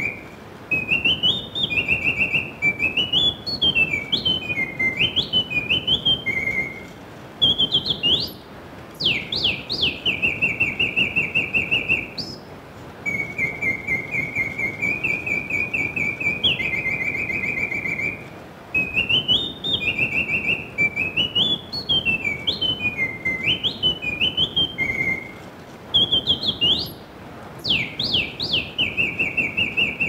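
Swiss mechanical singing-bird automaton whistling its bellows-driven birdsong: long steady trills, stepped warbling phrases and quick rising sweeps, the same song coming round again about every twelve seconds.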